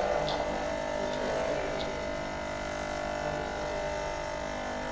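The vibration pump of a Lelit PL82T espresso machine running steadily while air-locked, drawing only air as water is pushed into its intake tube to prime it. A couple of faint small clicks sound over it.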